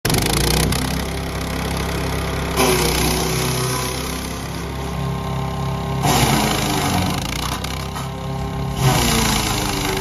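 A 13 HP petrol-engine wood chipper shredder running steadily. Three times, a few seconds apart, a sudden loud burst of chipping noise comes as leafy branches are fed in, and the engine pitch dips under the load and then recovers.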